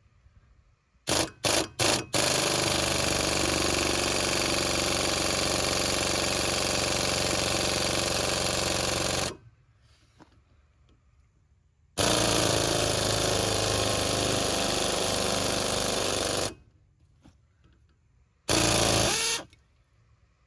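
Power driver working at a screw in bursts: three quick trigger blips about a second in, then a long steady run of about seven seconds, another of about four seconds, and a short final burst near the end.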